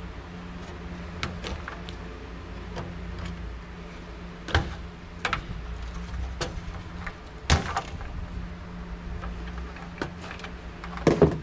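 Scattered clicks and knocks of plastic connectors and ribbon cable against the sheet-steel case as gloved hands work inside an old desktop computer, with a quick cluster of louder knocks near the end. A steady low hum runs underneath.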